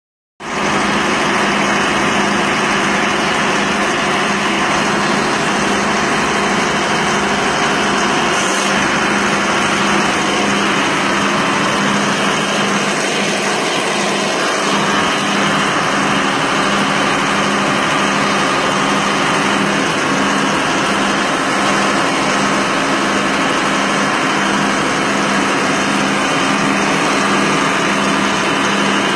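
A repaired Camis machine running steadily on test, with a constant, even hum throughout.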